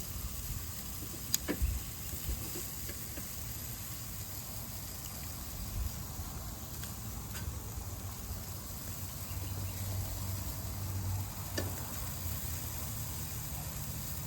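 Faint sizzling of meat cooking on a charcoal grill over a steady low hum, with a few light clicks.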